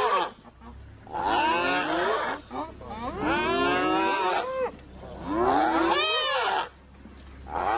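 Spotted hyena whooping: a series of long, drawn-out calls, each about a second and a half, one every two seconds or so.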